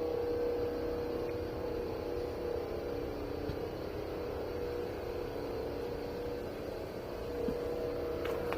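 A steady droning hum with one held tone and fainter overtones, the kind of unexplained sound heard from the sky and billed as a 'sky trumpet'.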